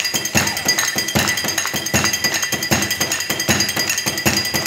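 Sharp, evenly spaced knocks, about two and a half a second, of tools striking a flaming salt crust on a serving tray, with music behind.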